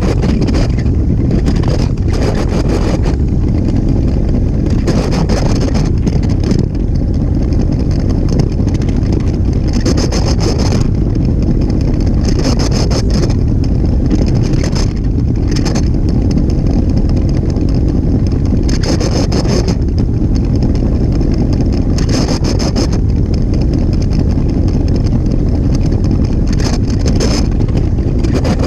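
Lego train's electric motor and plastic wheels running on plastic Lego track, heard close up from on board the train: a loud, steady rumble with several short bursts of higher-pitched clatter a few seconds apart.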